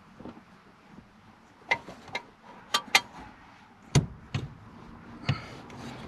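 Scattered sharp metal clicks and clinks, about seven of them, some with a brief ring, as an aluminium aftermarket shifter assembly and its linkages are worked into place in a car's transmission tunnel.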